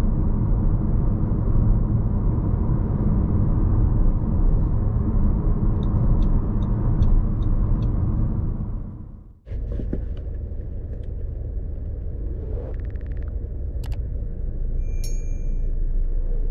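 Steady low cabin rumble of a 2018 Audi Q3 with a 1.4-litre petrol engine driving on a rough off-road track, with a run of light ticks at about two a second. It fades out a little over halfway, and a quieter steady rumble follows with a few sharp clicks.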